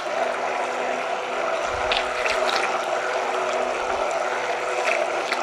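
Electric hand mixer running steadily, submerged in a bowl of oils and lye solution, blending raw soap batter that is still too liquid toward trace.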